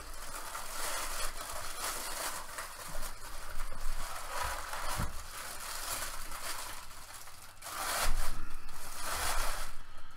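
Tissue-paper wrapping rustling and crinkling as it is pulled off a resin statue by hand, loudest near the end, with a couple of soft knocks about halfway through.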